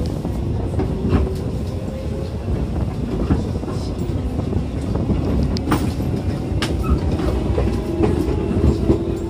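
Aizu Railway 6050 series electric train running, heard from its driver's cab: a steady low rumble of wheels on rails with scattered clicks over the rail joints. A steady humming tone comes in near the end.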